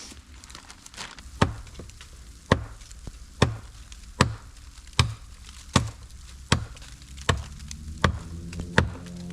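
Hammer blows at a steady pace, about one a second, each a sharp knock, as roofing nails are driven to tack plastic sheeting onto a wooden frame. Music fades in near the end.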